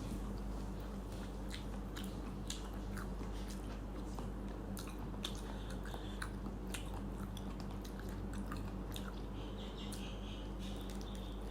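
Close-up eating sounds: chewing with small, irregular wet clicks of a mouthful of rice and curry, over a steady low hum.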